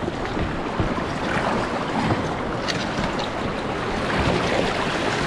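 River water rushing and splashing through rapids around a kayak, a dense steady wash with a few brief splashes.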